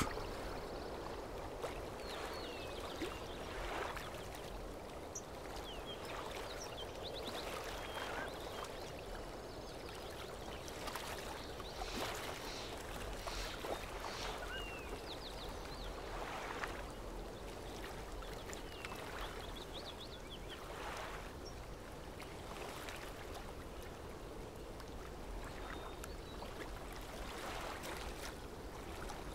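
Quiet outdoor ambience: a soft steady wash with scattered faint bird chirps and a few faint knocks.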